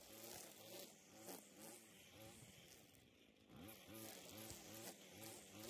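String trimmer running as it cuts grass along the lawn edge. Its motor buzz wavers up and down and eases off briefly about halfway through.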